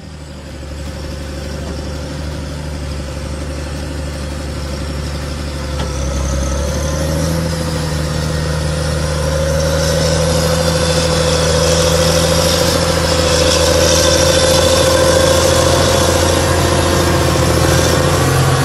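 John Deere 8370R tractor's 9.0-litre six-cylinder diesel pulling a large ripper under load. It grows steadily louder as the tractor approaches and passes close, with a steady whine above the deep engine note.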